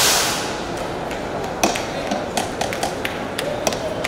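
Railway station concourse ambience: a loud hiss fades out in the first half second. Then come scattered sharp taps of footsteps on the stone floor over a steady background hubbub.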